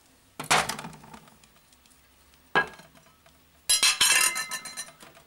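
A dinner plate and a steel kitchen knife clinking and knocking as they are handled. A sharp knock with a short ring comes about half a second in, another short knock follows, and near the end comes a quick run of rattling clinks, the loudest part.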